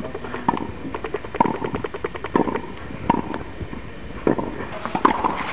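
Tennis racket striking balls in a practice drill: sharp pocks with a short ring, about once a second, with fainter ticks in between.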